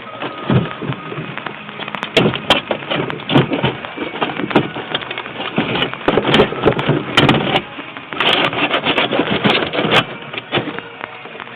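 Irregular knocking and clattering with rustling, in dense runs that come and go, like objects being handled and dropped.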